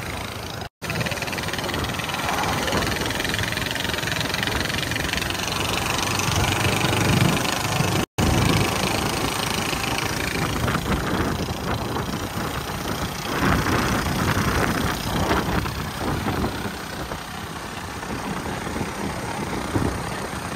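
A Bajaj Platina's single-cylinder engine on the move, its exhaust muffled by a homemade dB killer, under steady wind and road noise. The sound cuts out briefly twice, about a second in and about eight seconds in.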